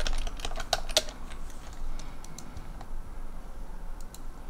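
Typing on a computer keyboard: a quick run of keystrokes in the first second, then a few scattered key clicks.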